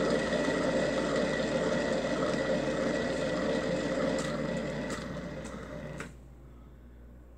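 Paint spinner whirring steadily as it spins a freshly poured acrylic canvas to fling the paint outward, slowing and then stopping about six seconds in.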